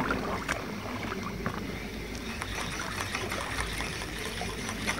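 Small waves lapping at a pebble lake shore, with a low rumble and faint ticks and rustles from a spinning reel and line being handled.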